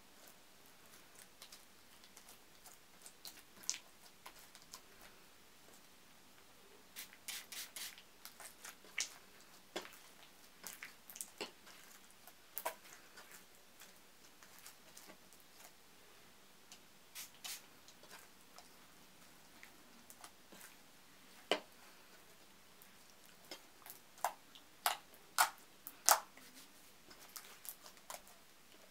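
Sticky, under-activated slime being kneaded and pulled by hand as it is activated: scattered sticky clicks and pops, bunched about seven seconds in and again over the last several seconds.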